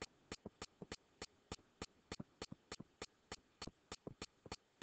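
Faint, quick clicks, about four to five a second, from a stylus tapping on a pen tablet while words are handwritten.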